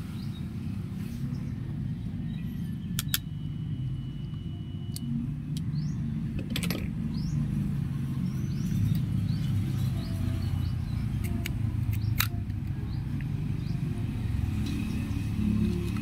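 Steady low rumble, with several sharp clicks scattered through it and faint high chirps.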